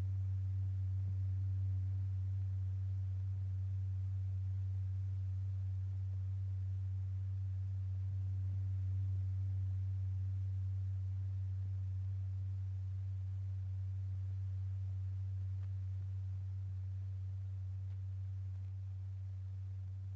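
Steady low pure tone of about 90–100 Hz exciting a stretched paper diaphragm strewn with lycopodium powder. Its loudness swells and sinks slightly while the pitch holds.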